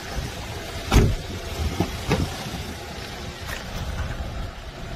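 A thump about a second in, then a few lighter knocks, as the rear door of a Hyundai Tucson ix is opened, over a steady low rumble.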